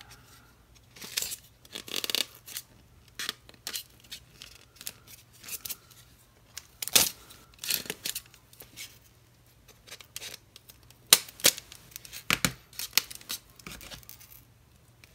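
Utility knife blade cutting and scraping into a thick white block, in short strokes at irregular intervals, a few much louder than the rest. The blade is dull, too blunt to cut through cleanly.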